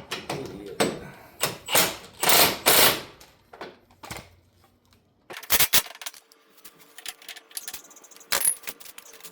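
Metal hand tools and sockets clinking and clattering, with a run of rattling handling early on, a few sharp knocks past the middle and a brief metallic ping near the end.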